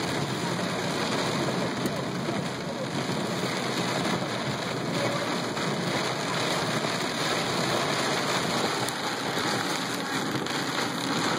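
Heavy monsoon rain pelting the car's roof and windshield, heard from inside the cabin as a steady, even hiss.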